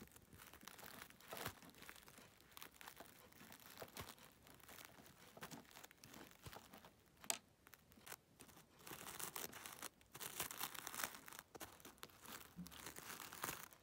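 Plastic Schleich toy figure and toy fence gate being handled by hand: faint crinkly rustling and scraping with scattered light clicks, one sharper click about halfway through and a busier patch of rustling a little later.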